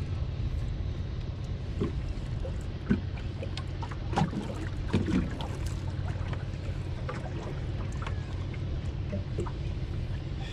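Low steady hum of an outrigger boat's engine running at low revs, with a few scattered light knocks and clicks.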